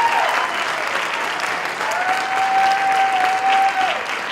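Audience applauding. A long whistle rides over the clapping, held on one steady note for about two seconds and falling away at its end.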